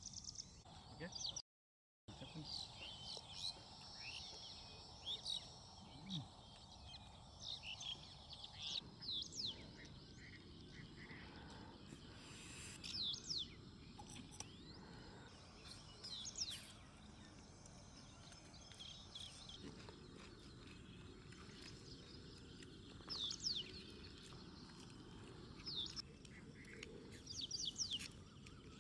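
Faint outdoor ambience: birds chirping in short, quick calls scattered throughout, over a low steady background hiss. The sound cuts out completely for about half a second near the start.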